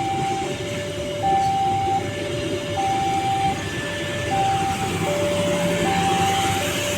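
Electronic two-tone warning, alternating evenly between a higher and a lower tone about every three quarters of a second, over a steady low rumble. It is typical of a railway level-crossing alarm sounding as a train approaches.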